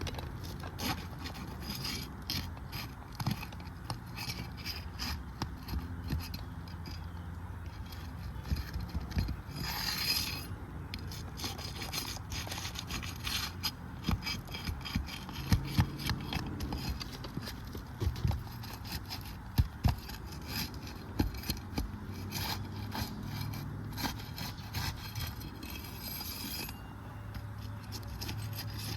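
Asphalt roof shingles being pried loose from their sealant strips: repeated scraping and rubbing strokes, with crackling as the seal lets go and a few louder sharp snaps in the middle.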